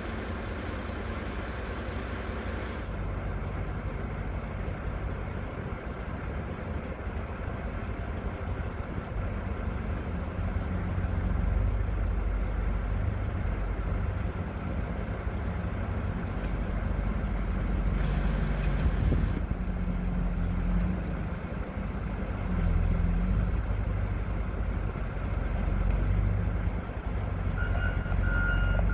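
Wheel loader's diesel engine running and revving in swells as the machine is driven, with a reversing alarm starting to beep near the end.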